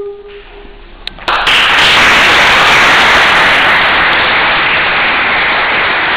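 A woman's a cappella held note ends just after the start; after a quieter moment, audience applause breaks out suddenly, loud and dense, and keeps on steadily.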